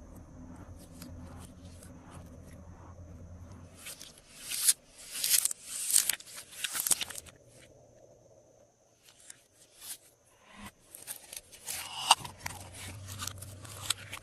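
Glossy slime being worked by hand, with crisp crackling and clicking in two spells: a loud cluster about four to seven seconds in, and another starting about ten seconds in.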